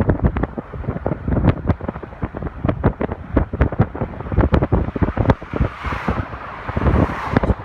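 Wind noise on the microphone of a moving vehicle on a mountain road, over a low rumble with many irregular knocks and rattles. A hiss rises for a second or two about six seconds in.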